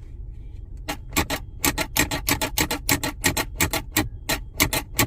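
Chery Tiggo 7 Pro Max's centre-console cup-holder lid squeaking as it is worked back and forth: a rapid run of short squeaks, several a second, starting about a second in, over a steady low hum. The squeak is a new fault whose cause is not yet known.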